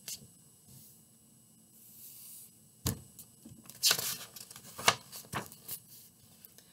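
Pages of a picture book being handled and turned: soft paper rustling, then several sharp crackles of paper during the last few seconds.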